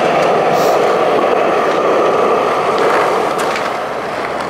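Skateboard wheels rolling steadily over smooth concrete, a continuous rolling noise, with a few faint clicks about three and a half seconds in.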